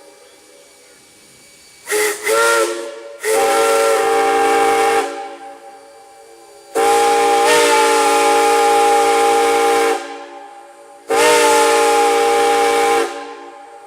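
Steam whistle blown in a sequence: two short toots, then three long blasts of about two to three seconds each. Each blast sounds a chord of several notes at once.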